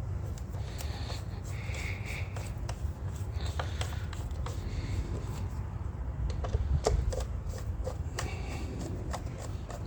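Irregular metal clicks and ticks from a hand tool driving Torx screws back into the PCV valve cover on a 1.6-litre engine, over a steady low rumble.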